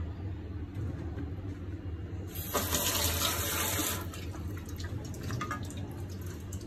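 A water tap runs briefly, a rushing hiss of about a second and a half that starts and stops abruptly, over a steady low hum.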